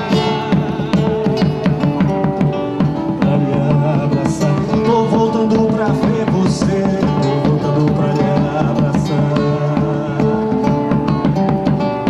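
Instrumental passage of a live Brazilian folk song: strummed acoustic guitar with held melody notes, and a few bright accents about four, six and a half and nine seconds in.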